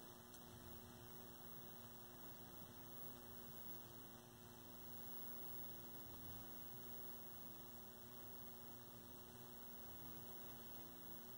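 Faint, steady electrical mains hum, two low tones held unchanged.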